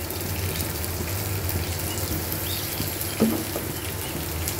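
Spiny gourd slices and onions sizzling steadily as they fry in oil in a pan, stirred with a spatula, over a low hum.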